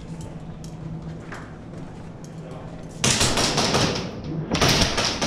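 Airsoft gun firing in two bursts of rapid clicks on full auto, starting about three seconds in, after a few seconds of low background.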